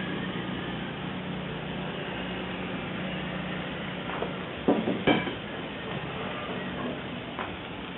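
A few sharp metal clacks, like tongs or a tool knocking on a cast iron grill grate, come in a quick cluster about five seconds in, with one lighter knock near the end. A steady hiss runs underneath.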